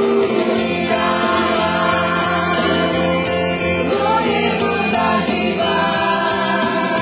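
Dance-band music with a woman singing into a microphone, steady throughout.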